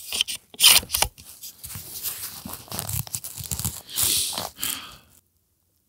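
A run of sharp clicks and knocks with rustling handling noise in between, loudest near the start, breaking off into dead silence shortly before the end.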